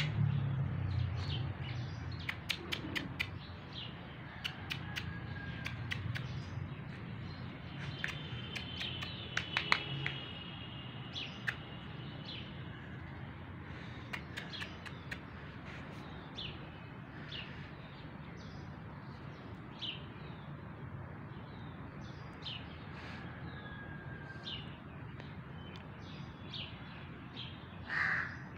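Small birds chirping in short repeated notes, mixed with a few sharp clicks, and a crow cawing once near the end.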